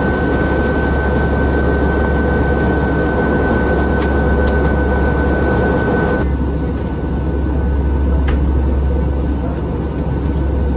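Cabin noise inside an Airbus A321 in flight: a steady, deep rumble of engines and airflow, with a thin steady high tone over it. The high tone and much of the upper hiss cut off abruptly about six seconds in, while the rumble carries on.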